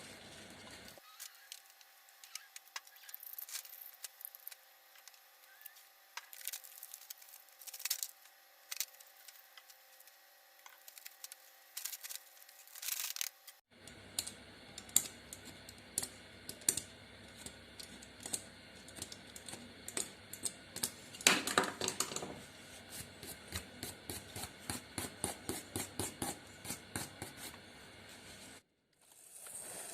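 Hand work on an old drill's parts: irregular sharp clicks, taps and scrapes, with a steady run of ticks about three a second near the end.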